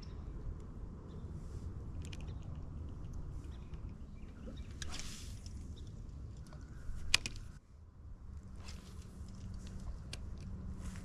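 Spinning reel being cranked to bring in line after a bite: soft clicking and rattling from the reel, with one sharp click about seven seconds in.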